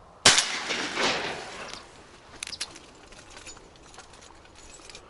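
A single shotgun shot: a sharp crack about a quarter second in, followed by a rolling echo that fades over about a second and a half. A few faint clicks follow.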